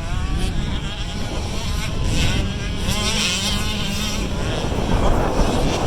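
Several 65cc two-stroke motocross bikes racing, their engines revving up and down in pitch as they pass.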